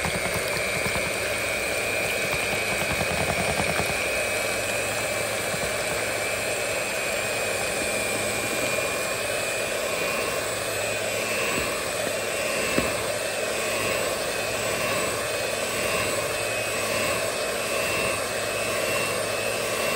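Electric hand mixer running steadily, its twin beaters whirring through a runny egg mixture in a bowl, over a steady motor whine. One brief knock partway through.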